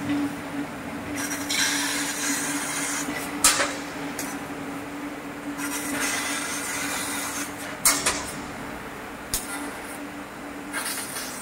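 JQ FLT H1 fiber laser tube cutter cutting a metal C-profile: the cutting head's gas jet hisses in bursts as it cuts, with a few sharp cracks. A steady machine hum runs underneath.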